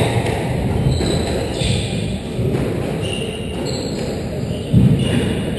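Squash rally: the ball is struck by rackets and hits the court walls with thuds, the loudest about three-quarters of the way through. Players' shoes squeak and scuff on the wooden court floor.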